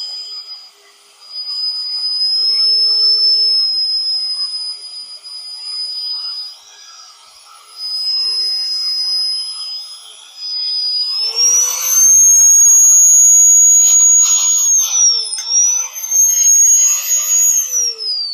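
Electric drill motor whining at a steady high pitch while drilling half-inch steel plate. About 11 seconds in it speeds up with added cutting noise, dips briefly, then winds down in a falling glide near the end.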